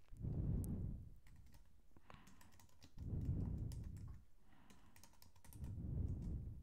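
Faint computer keyboard typing: scattered single key clicks as a short command is typed. Three low, muffled rumbles about a second long each come near the start, in the middle and near the end, and are louder than the clicks.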